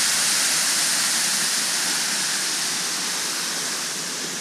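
Small woodland waterfall rushing steadily into a stream pool, growing slightly fainter toward the end.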